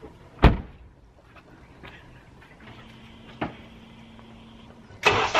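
A car door slamming shut with a single heavy thump about half a second in, followed by a few faint clicks. Near the end a loud, steady rushing noise cuts in suddenly.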